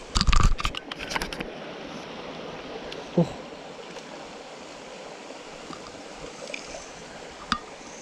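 A cluster of sharp knocks and rustles close to the microphone in the first second and a half, then a small mountain stream trickling steadily, with a single click near the end.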